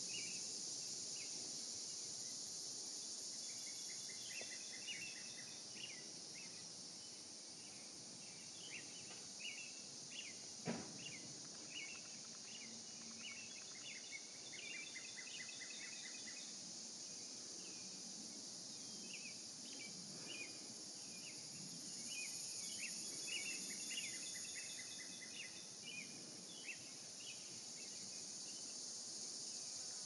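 Steady high-pitched drone of an insect chorus, with scattered chirps over it throughout. A single soft tap about eleven seconds in.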